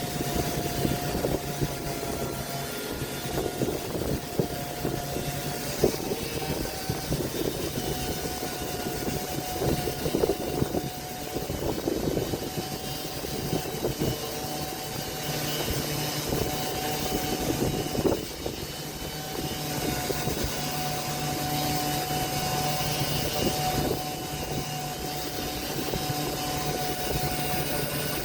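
An electric woodworking power tool running steadily, its motor whine holding one pitch, with uneven crackling and scraping noise over it.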